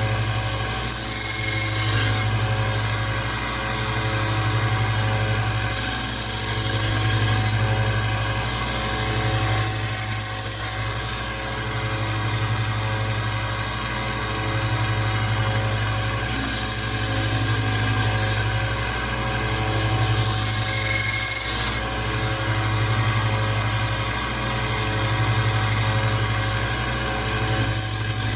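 Rikon 1x30 belt sander running with a steady motor hum while a knife blade is ground freehand against the belt. About six passes, each a hiss lasting one to two seconds, as the bevel is reground to reprofile the blade.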